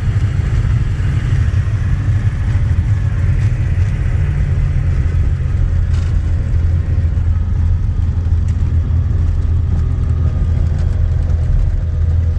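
Cessna 210's engine and propeller running with a steady, deep drone.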